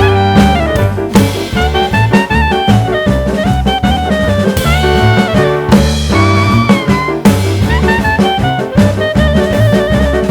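Background music: an upbeat jazz tune with a saxophone or brass melody over bass and drums.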